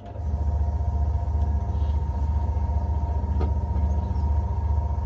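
Lumberjack DP13-580B 13 mm benchtop drill press switched on and running with no load: a click as it starts, then a steady low motor hum with a fixed higher whine over it.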